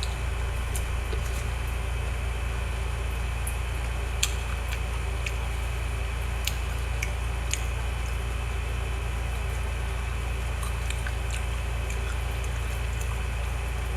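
Mouth sounds of someone eating green mango: sharp wet clicks and squishy chewing noises scattered through, the sharpest about four seconds in, over a steady low hum.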